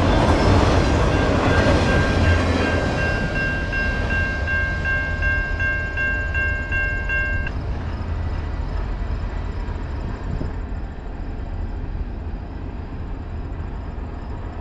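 A long CN freight train of autorack cars rolls past with a heavy rumble of wheels on rail that slowly fades. Over it a railway crossing bell rings in a rapid, even rhythm, about three strokes a second, until both cut off about halfway through. A quieter steady rumble follows.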